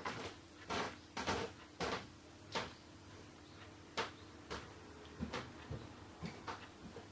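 Cat grooming another cat at close range: about a dozen soft, irregular clicks and ticks, loudest in the first three seconds, from licking and small movements, with the groomer's collar bell moving.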